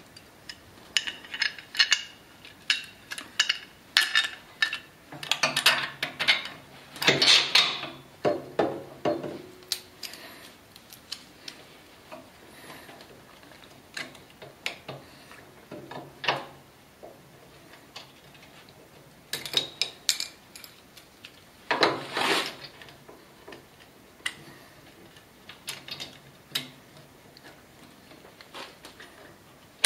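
Irregular metallic clicks and clatter of a bolt and plastic knob being fitted to a portable generator's steel handle bracket, with two longer bursts of rattling and scraping.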